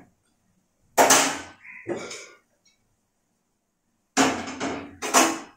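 Metal cookware clanking: a steel spatula knocking and scraping in a steel wok and the pressure cooker being handled, in four short clanks that each ring briefly.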